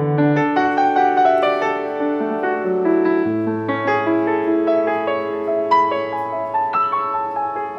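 Background piano music: a melody of single notes over held low notes.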